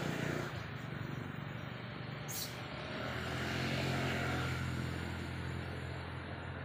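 A motor engine drones steadily, swelling to its loudest around four seconds in and easing off again, like a vehicle passing by. A short high click is heard about two and a half seconds in.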